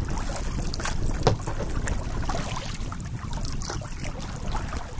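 Kayak paddle strokes, water splashing and dripping off the blades, over wind rumbling on the microphone. One sharper knock a little over a second in.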